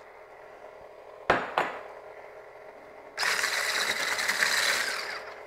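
Electric stick blender with a whisk attachment switching on about three seconds in and running, its whisk whipping milk and cream into instant banana pudding mix in a bowl. Two sharp knocks come a little after a second in, before the motor starts.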